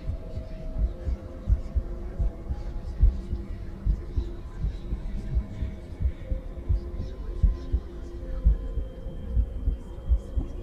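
A woman's heartbeat heard through a stethoscope: repeated low, dull thumps. Faint whispering voices and a soft hum sit behind it.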